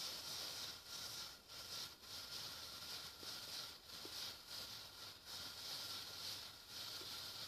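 Burning methanol with a blue flame, hissing steadily as the fuel boils, the hiss briefly dipping several times at irregular moments.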